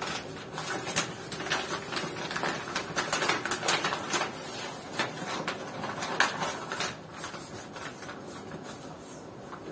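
A bag crinkling and rustling in rapid, irregular crackles as it is folded and pressed flat by hand; the crinkling thins out and quietens about seven seconds in.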